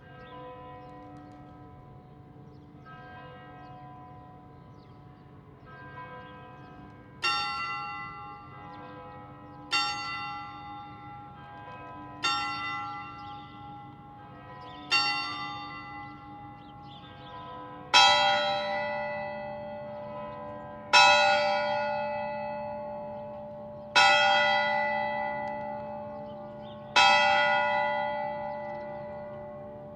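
Leipzig Old Town Hall tower bells striking. A lighter bell strikes four times about two and a half seconds apart, then from about halfway a deeper, louder bell strikes every three seconds, each stroke ringing on and fading slowly.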